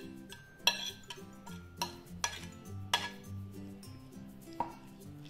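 A steel spoon clinking and scraping against a ceramic plate and bowl while chopped coriander is scraped in and mixed, with about five sharp clinks, over soft background music.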